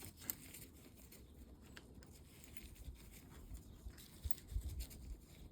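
Faint clicks and light knocks from handling tools or engine parts, with a few soft low thumps about four to five seconds in.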